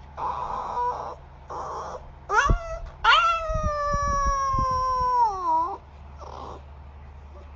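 Puppy crying in slow motion, slowed down and lower-pitched: a few short whimpers, then one long drawn-out whine that sinks slowly and drops away at its end, with a faint last whimper after it. A steady low hum runs beneath.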